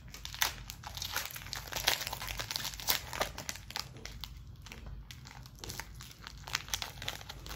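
Foil wrapper of a Pokémon trading card booster pack crinkling as it is torn open by hand, with irregular sharp crackles that are thickest in the first few seconds and thin out as the cards come out.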